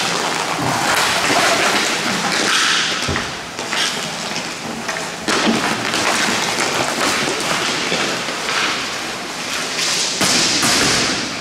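Hockey play: stick and puck knocks and thuds, with bursts of hiss.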